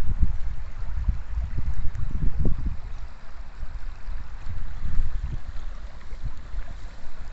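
Wind buffeting the microphone in uneven low gusts, over the steady rush of flowing river water.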